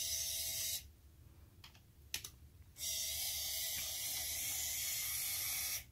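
Small geared DC drive motor turning the rover's front wheel with a steady high whir, which stops under a second in; a few key clicks follow, then the motor starts again and runs until it cuts off near the end.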